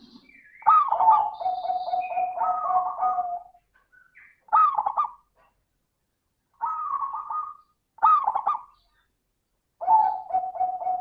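Zebra dove (perkutut) singing its cooing song: a long run of rapid staccato coos, then three short phrases, then another long run beginning near the end.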